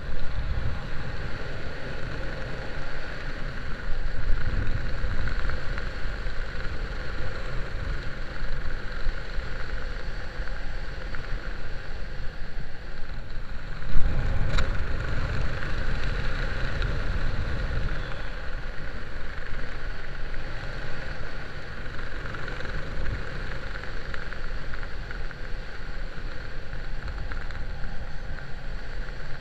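Wind rushing over the camera's microphone as a parachutist descends under an open canopy: a steady, low buffeting rumble. About halfway through there is a single sharp knock on the camera.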